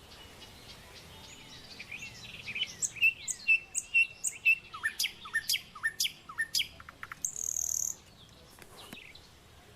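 Songbirds calling: a rapid run of sharp high chirps and quick downward-sweeping whistled notes, loudest through the middle, ending in a short high buzzy note about eight seconds in.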